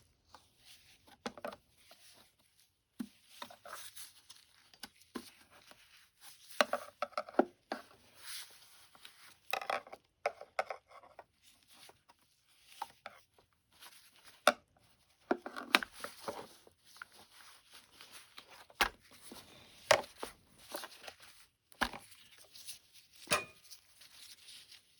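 Irregular clicks, knocks and rustling of upright vacuum cleaner parts being handled and taken apart by hand.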